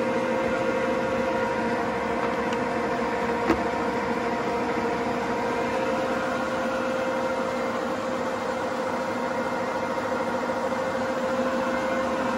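Steady hum of running machinery with a constant whine, and a single sharp click about three and a half seconds in.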